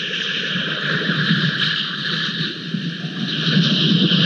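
Steady rushing noise of wind and rain at the camera's outdoor microphone, with no distinct calls or knocks.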